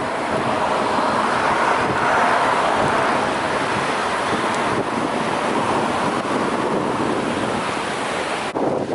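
Loud, steady wind buffeting the microphone, dropping away sharply near the end.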